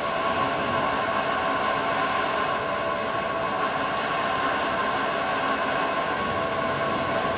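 E6 series Shinkansen car rolling slowly along factory track: a steady rolling noise with sustained high squealing tones.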